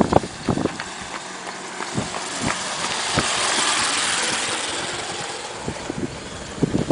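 A vehicle passing by: its noise swells to a peak about halfway through and fades again, with scattered short knocks around it.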